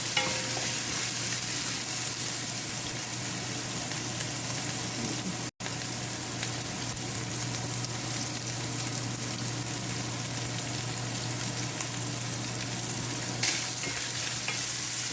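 Minced chicken and chopped green onion sizzling steadily in hot oil in a pan. The sound cuts out for an instant about a third of the way in, and there is a short, louder sound near the end.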